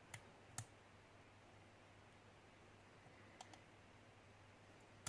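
Faint, sparse clicks of a lock pick against the pins inside a pin-tumbler lock held under tension: two in the first second, a close pair about three and a half seconds in, and one at the end. No pin is binding, so the pins give no set.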